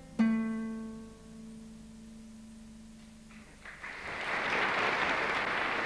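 A final guitar chord struck once and left to ring, fading out over about three seconds, ending a folk song; then the audience breaks into applause near the end.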